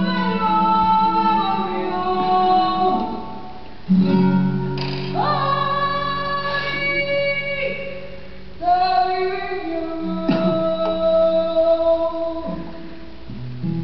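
Music: a song with a singing voice holding long notes over instrumental accompaniment.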